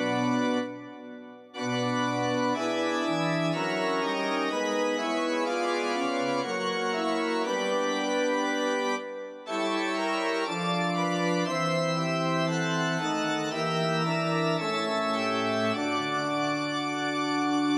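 Slow organ music in sustained chords, dropping out briefly about a second in and again about nine seconds in.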